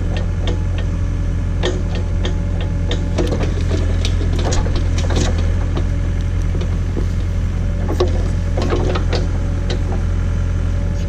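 John Deere 317 tractor engine running steadily while it powers the Davis D100 backhoe, with scattered sharp clicks and knocks over it.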